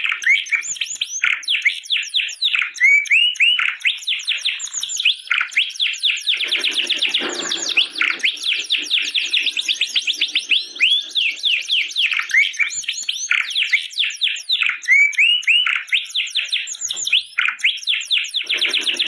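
Domestic canary singing a long, unbroken song of rapid trills and whistled rolls, with lower, fuller passages a few seconds in and again near the end.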